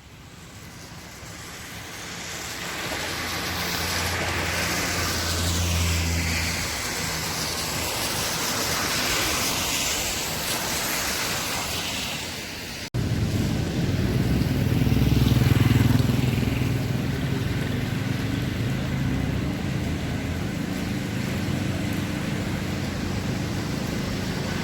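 Steady vehicle noise, a hiss and low rumble, with an abrupt cut about thirteen seconds in to a deeper, louder rumble.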